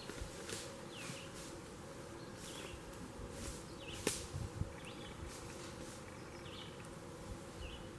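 Quiet outdoor ambience: a faint steady buzz, with short high chirps every second or so and a few sharp clicks, the loudest about four seconds in.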